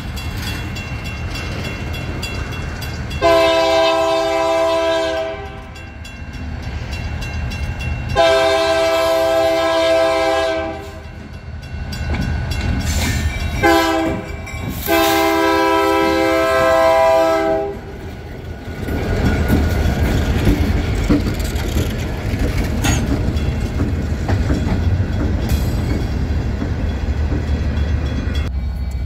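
BNSF 2911's multi-note diesel locomotive horn blowing the grade-crossing signal: two long blasts, one short and one long as the locomotive approaches. The engine's running is heard under it, and after the horn the train runs past with louder rail noise.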